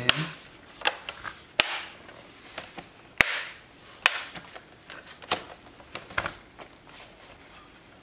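Plastic bottom cover of a Lenovo IdeaPad 330-15IKB laptop being pressed back onto the chassis. Its clips snap into place with a series of sharp clicks, about seven over six seconds, with scraping handling sounds between them.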